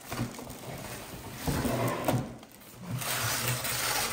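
Rustling and handling of packaging as a small printer is unboxed, coming in uneven swells.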